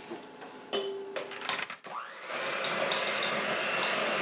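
Electric hand mixer: a few clicks and knocks as it is handled, then about two seconds in it switches on, spins up and runs steadily, its beaters creaming softened butter in a glass bowl on medium speed.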